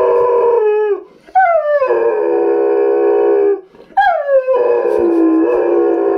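A dog howling in long drawn-out calls, each starting high, sliding down, then holding. One call ends about a second in, a second follows, and a third begins about four seconds in. The dog is howling in answer to its owner's recorded voice coming from a computer speaker.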